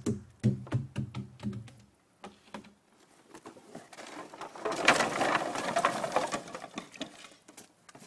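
Loose boards of a scrap-wood pile knocking and clattering underfoot as a man climbs down it: a quick run of sharp knocks in the first two seconds. About halfway through come a few seconds of crunching, rustling footsteps through dry wood debris and brush.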